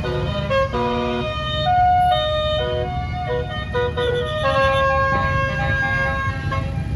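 A bus's basuri telolet air horn playing a melody of quick stepped notes, some held longer in the middle, over the bus's engine rumble.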